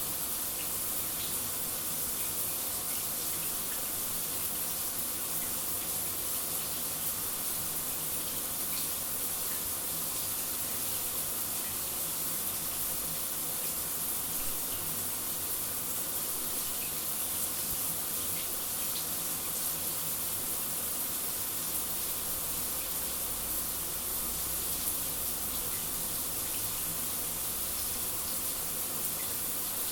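A shower running: a steady, unbroken hiss of water spray.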